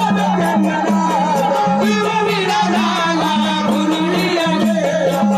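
Marathi devotional folk song to Khandoba, a jagran-gondhal song, sung by a man with live accompaniment. His wavering voice rides over a steady hand-drum rhythm and instruments.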